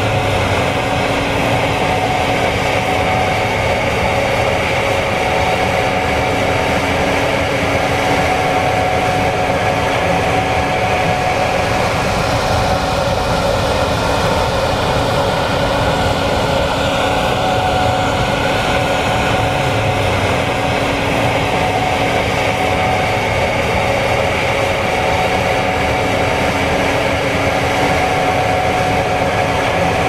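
Gleaner S96 combine harvesting soybeans, its engine and threshing machinery running steadily under load: a constant rushing noise with several steady whines over it.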